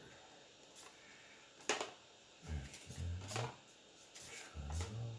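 Magic: The Gathering trading cards handled and flipped through in the hands, with soft card rustles and a sharp card snap about 1.7 s in. A low murmur of the man's voice comes twice in the second half.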